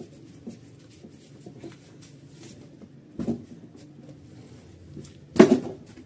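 Light clatter of household objects being handled, with two sharp knocks, one about three seconds in and a louder one near the end.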